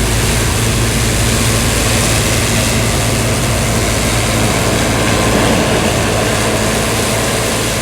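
John Deere 7720 Turbo combine harvesting wheat: its 466 cubic inch six-cylinder turbo diesel and threshing machinery running loud and steady under load.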